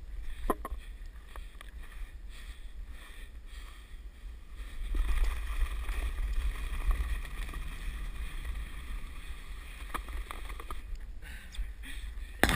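Sled sliding down a snowy slope: a steady hiss and scrape of snow under the sled, with low wind rumble on the microphone, louder for several seconds in the middle of the run.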